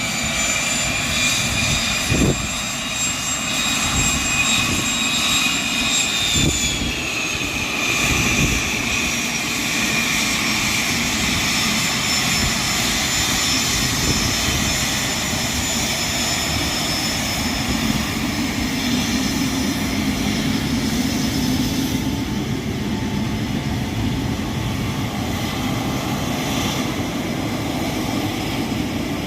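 A Cessna Citation CJ1's twin Williams FJ44 turbofan engines running with a steady high-pitched whine over a rushing noise. The whine drops slightly in pitch around seven seconds in, then holds steady. There are two brief low thumps early on.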